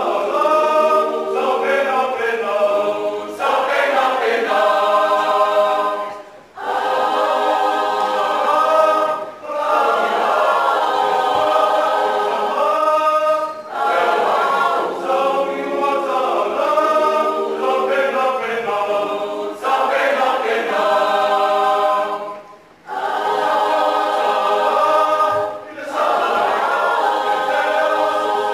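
Mixed youth choir of men's and women's voices singing a cappella in harmony. The phrases break off in short pauses every few seconds.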